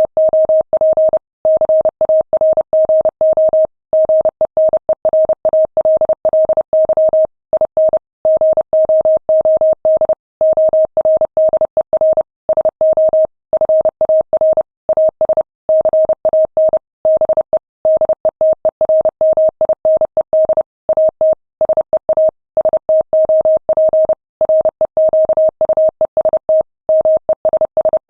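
Morse code sent at 30 words per minute: a single steady beep tone keyed on and off in rapid dots and dashes, with short pauses between words.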